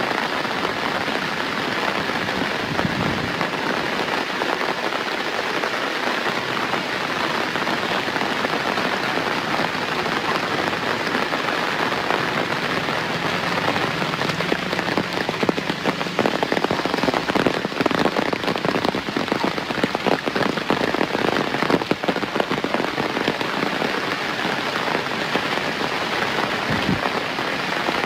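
Steady rain falling, a dense hiss of drops on surfaces, with the pattering of individual drops growing louder and thicker in the middle stretch before easing again.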